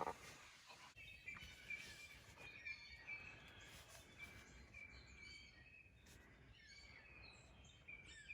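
Faint songbirds chirping and trilling in short repeated phrases over a quiet outdoor background, with one soft knock right at the start.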